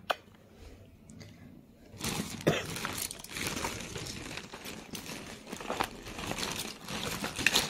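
A thin plastic carrier bag crinkling and rustling as a ginger cat climbs into it and rummages among cardboard medicine boxes. The rustling starts about two seconds in and goes on in uneven crackles.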